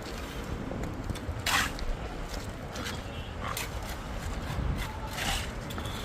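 Concreting work on a building site: a steady low rumble with four short, sharp scrapes spread through it.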